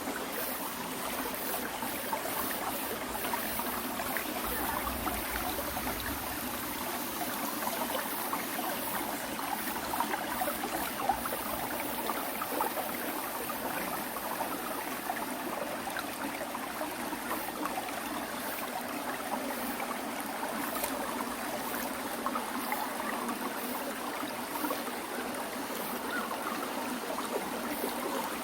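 Water rushing steadily over rocks in a stream, a continuous splashing and gurgling.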